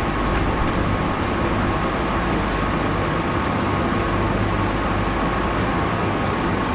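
Steady mechanical drone of running machinery, with a constant high tone over a low hum and no breaks.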